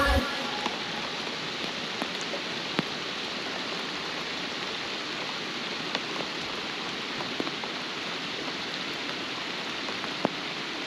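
Steady rain falling, with a few sharper drop ticks scattered through the hiss.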